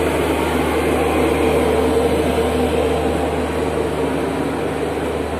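Steady low drone of a car ferry's engines and machinery, heard from the open deck, an even hum and rumble that does not change.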